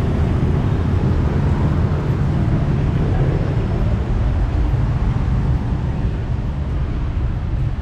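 Steady city street traffic noise, a dense low rumble of passing vehicles, easing slightly near the end.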